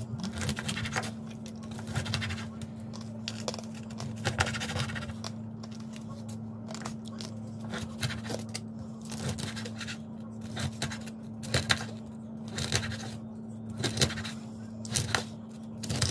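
Irregular crackles and scrapes of crispy roast pork being cut and eaten, over a steady low hum.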